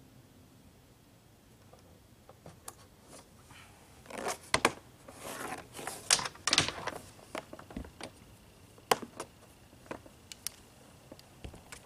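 Solar panel cables and their plug connectors being handled: rustling and scraping with several sharp clicks, busiest from about four seconds in, then scattered single clicks.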